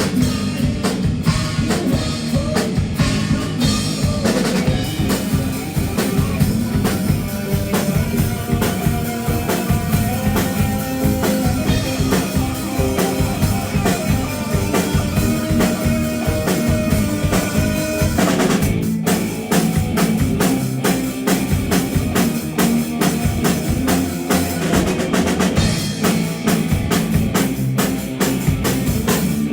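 Live band playing an instrumental passage with no singing, the drum kit loud and driving, with bass drum and snare strikes. The cymbals and low end drop out briefly about two-thirds of the way through, then the full band comes back in.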